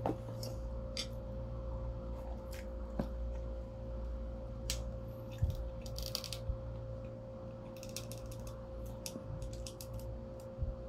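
Close-miked eating sounds: chewing with scattered small clicks and taps, some in quick clusters, over a steady low hum.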